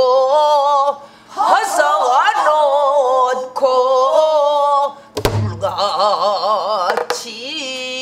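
A woman sings a Korean folk verse in the pansori vocal style, with heavy, wide vibrato, in phrases broken by short breaths. A buk barrel drum is struck with a low thud about five seconds in, with a lighter knock about two seconds later.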